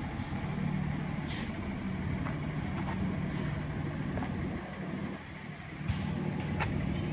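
Steady low hum of a running engine, with a few brief hisses.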